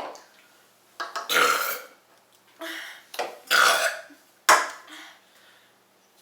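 People burping after gulping carbonated soda: a string of short burps with brief silent gaps between them.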